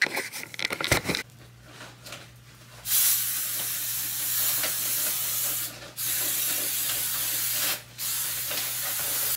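A few handling knocks, then an aerosol spray can sprayed in three long hissing bursts with two short breaks between them.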